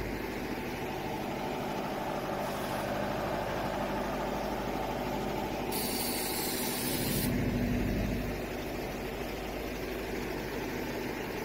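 An engine idling steadily, its low rumble swelling for about a second near the middle, with a hiss lasting just over a second about six seconds in.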